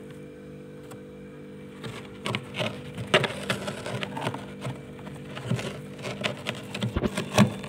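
Loose freezer frost crunching as a bare hand scoops handfuls of it into a stainless steel bowl: a quick run of crisp crunches and scrapes starting about two seconds in, the loudest near the end.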